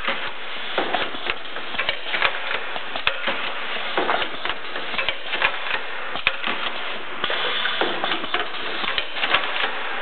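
Pneumatic cheese-box assembling machine running: a rapid, uneven clatter of clicks and knocks from its air cylinders and moving parts, with a brief hiss about seven seconds in.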